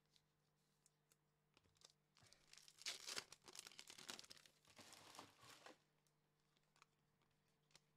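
A 2021 Donruss baseball card pack's wrapper being torn open and crinkled, in two stretches of crackly tearing: one about two seconds in and another about four and a half seconds in. Around them it is near silent, with a few faint ticks.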